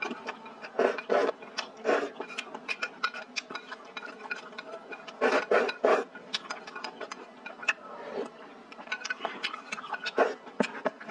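Close-miked eating sounds: several loud slurps of broth from a bowl, between many small wet mouth clicks, with chopsticks tapping against the bowl.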